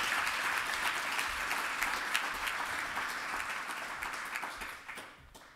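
Audience applause, which dies away near the end with a few last claps.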